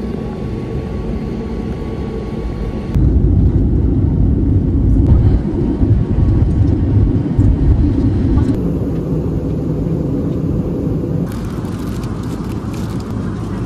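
Airliner cabin noise: the steady low rumble of jet engines and airflow, stepping up sharply about three seconds in and easing off again in the second half.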